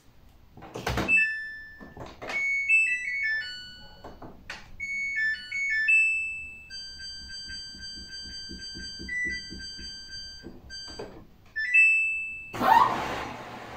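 Samsung washing machine control panel beeping as its buttons are pressed: a series of short electronic beeps at several pitches with button clicks, and a longer held tone in the middle. Near the end a loud, steady rushing noise starts up from the machine.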